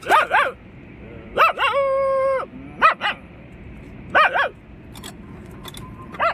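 A man imitating a dog barking: short sharp barks, often in quick pairs, with one drawn-out, steady whine held for about a second near the middle.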